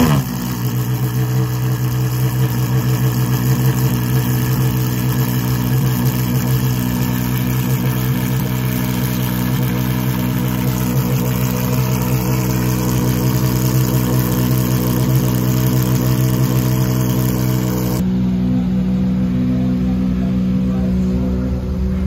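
Maserati MC12 Corsa's V12 catching on a cold start with a brief flare right at the start, then idling steadily. The tone of the idle shifts about eighteen seconds in.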